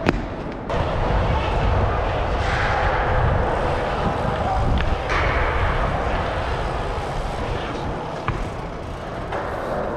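Dirt jump bike tyres rolling over concrete ramps, a steady rumbling hiss mixed with air noise on the rider's camera microphone, with a sharp knock right at the start.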